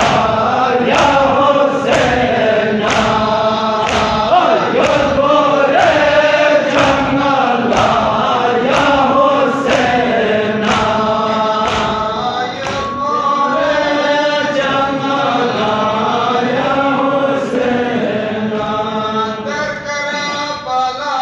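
A group of men chanting a noha, a Muharram lament, together in a reverberant hall. Sharp chest-beating (matam) strikes keep time about once a second for the first half, then thin out.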